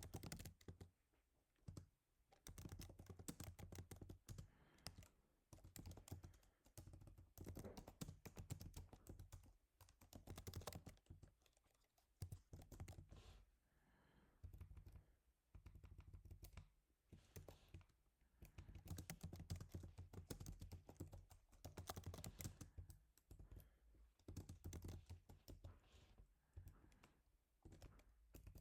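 Typing on a computer keyboard, with runs of rapid keystrokes lasting a few seconds and brief pauses between them.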